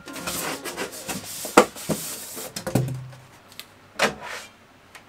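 Rubbing and scraping as hands handle parts inside a 3D printer, with a sharp knock about a second and a half in and a second knock about four seconds in.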